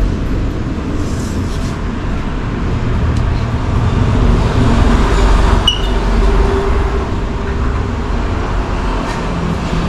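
Steady low vehicle rumble, swelling a little around the middle, with one short click a little under six seconds in.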